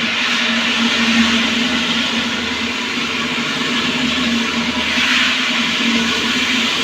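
Steady machine hum: a constant low tone over an even hiss, unchanging throughout.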